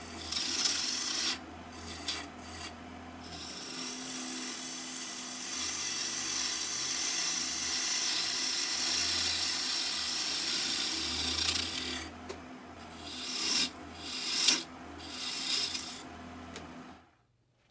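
Turning gouge cutting the outside of a spinning red oak blank on a wood lathe: a rough, hissing scrape of steel on wood, broken by short pauses as the tool comes off the wood. It cuts off suddenly near the end.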